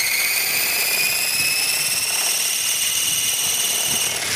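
Align T-Rex 450 electric RC helicopter's brushless motor and drive gears whining as the rotor spools up, the pitch rising slowly and steadily. The whine cuts off suddenly near the end.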